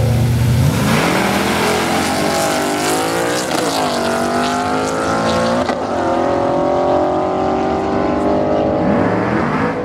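Two drag cars, a first-generation Chevrolet Camaro and a late-model Ford Mustang, launch hard off the line. Their engines rev up through the gears, the pitch dropping back at shifts about three and a half and six seconds in, and fade as the cars run down the track. Near the end another engine starts to rev up.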